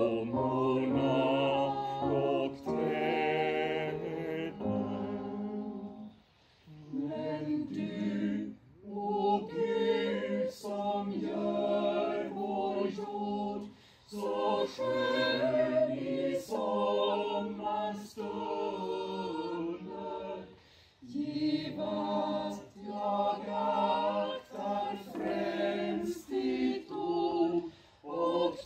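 A choir singing in short phrases with brief breaks between them.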